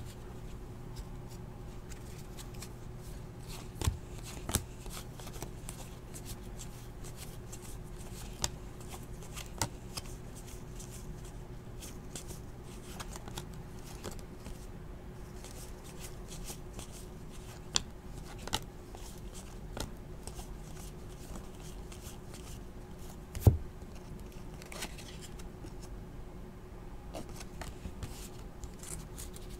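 Trading cards being handled and flipped through, a quiet rustle with scattered sharp taps and clicks, the loudest about three-quarters of the way in.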